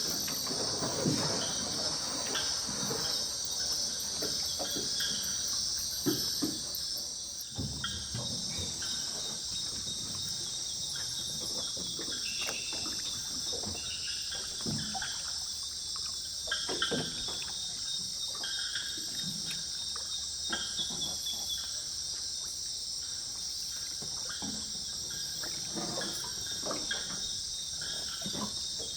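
Steady high-pitched chorus of night insects, crickets among them, pulsing for the first several seconds and then evening out. Scattered soft clicks and rustles sound underneath.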